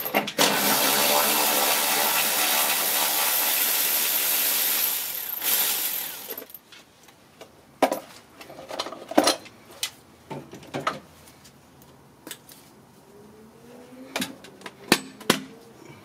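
A power ratchet running steadily for about five seconds, spinning out bolts with a 10 mm socket, then dying away; after that come scattered clicks and clinks of the tool and loosened parts.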